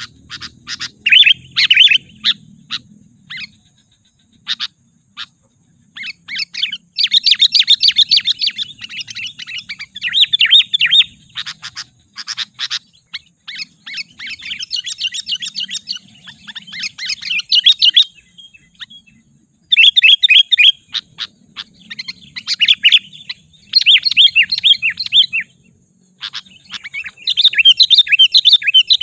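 Sooty-headed bulbul calling excitedly: bursts of rapid chattering notes, each phrase a second or two long, repeated with short pauses throughout.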